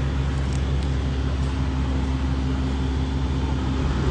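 Steady low mechanical drone with a constant hum running under it.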